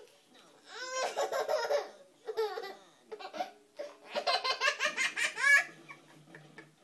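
A toddler belly-laughing in two long fits of quick, pulsing laughs, each lasting about a second or more. The second fit ends on a rising, higher-pitched note.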